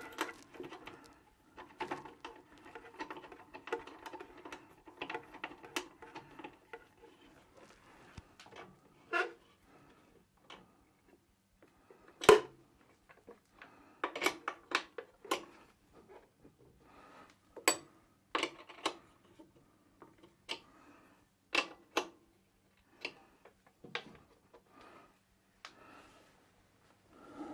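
Irregular clicks, taps and clatters of metal fittings and tools being handled while an oil burner is fitted onto a boiler flange, with one sharp knock about twelve seconds in and a quick run of ticks soon after.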